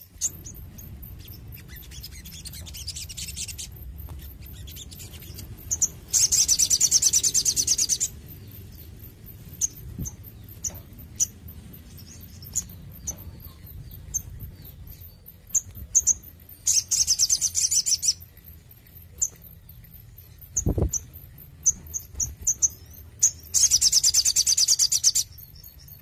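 Male olive-backed sunbird singing: three loud bursts of very rapid, high, buzzy trilling, each about one and a half to two seconds long, with short sharp chips scattered between them. A single soft knock comes near the end.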